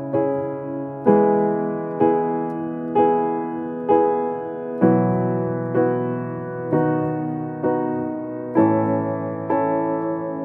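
Background piano music: slow, evenly paced notes about one a second over held chords that change every few seconds.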